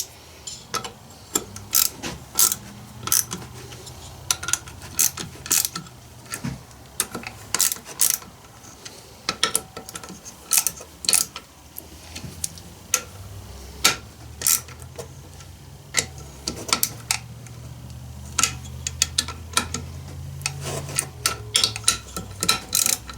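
Small socket ratchet clicking in short runs as the nuts on a Stihl 041 AV Super chainsaw's cylinder studs are snugged down by hand. The nuts are being tightened to seal the cylinder against air leaks.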